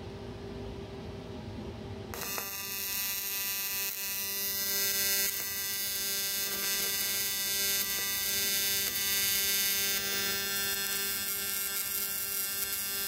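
TIG welding arc on aluminium, a steady electric buzz with a hiss, striking about two seconds in and held steady while filler rod is fed into the weld pool. Before it strikes there is only a low steady hum.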